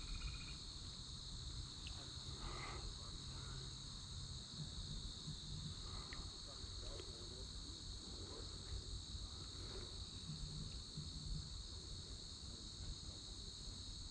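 Steady chorus of insects singing, a continuous high-pitched drone, over a low rumble.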